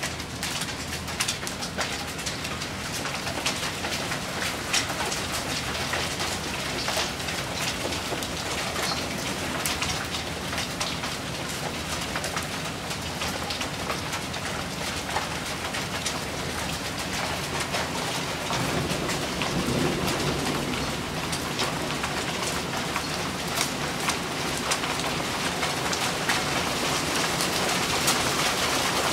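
Light hail and rain falling on surfaces: a steady hiss of rain with many sharp ticks of hailstones striking, growing a little heavier near the end.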